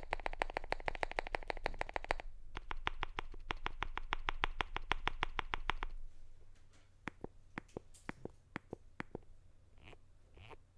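Fast typing on a CIDOO V65 mechanical keyboard with lubed Quake Matte linear switches, a polycarbonate plate and ePBT keycaps: a rapid, even run of key clicks with a short break near two seconds, then slower, separate keystrokes from about six seconds in.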